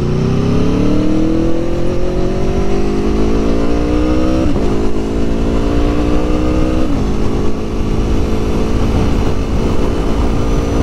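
Aprilia Tuono V4 Factory motorcycle's V4 engine accelerating, its pitch climbing and dropping back twice, about four and seven seconds in, as it shifts up, then holding a steady cruise. Wind rumble on the bike-mounted microphone runs underneath.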